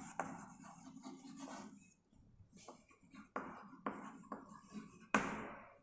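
Chalk scratching and tapping on a blackboard as words are written, in short strokes with pauses between them.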